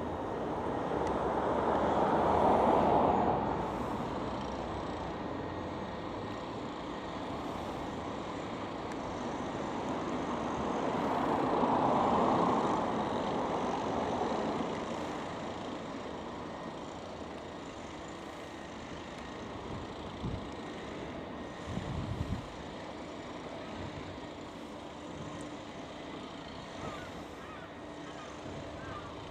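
Road traffic: vehicles passing, with two swells in engine and tyre noise that rise and fall, then a steady background rumble with a couple of short knocks.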